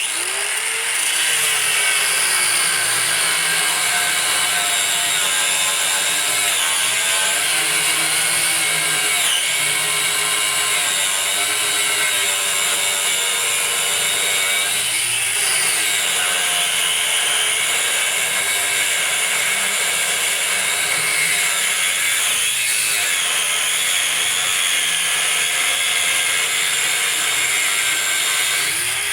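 Angle grinder with an abrasive cut-off wheel cutting through a steel van frame rail: a steady motor whine that starts abruptly, its pitch sagging briefly three times, about 9, 15 and 22 seconds in, as the wheel bites harder into the metal.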